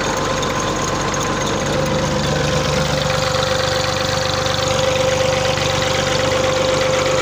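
Tractor diesel engine running steadily at low revs, driving a tubewell pump through its PTO shaft, with a steady tone running above the engine note.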